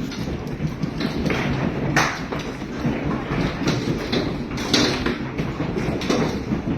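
Hailstones and heavy rain pounding a hard surface, a steady rush of noise broken by many irregular sharp knocks and thuds.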